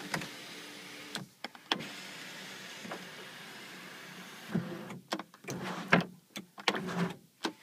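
Electric sunroof motor of a 2002 Honda Civic running as the glass panel slides, a steady whirring hum with a short break about a second in. After about four and a half seconds the hum stops and a run of irregular clicks and knocks follows.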